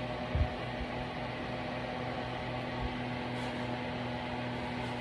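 A steady low electrical or mechanical hum with a faint higher tone over it, and a brief low thump about half a second in.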